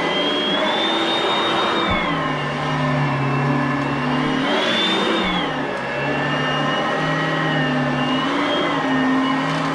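Oreck upright vacuum cleaner running, its motor whine rising and falling in pitch a few times.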